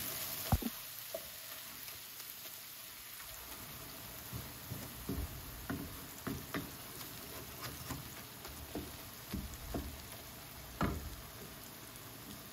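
Onions and tomatoes sizzling gently in a frying pan on a gas flame just turned down, with scattered light knocks and scrapes of a wooden spatula against the pan as it stirs. The sharpest knock comes about half a second in, and the sizzle fades slightly toward the end.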